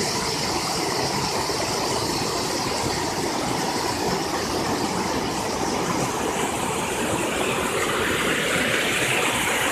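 Rushing water of a swollen, muddy creek running fast over rocks, a steady rush that grows a little louder and brighter near the end.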